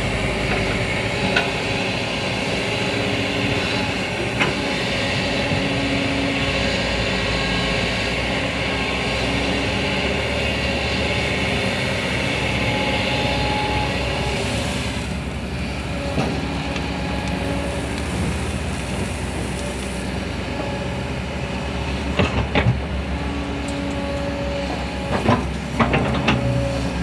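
Excavator running steadily at work, with several sharp knocks in the last few seconds.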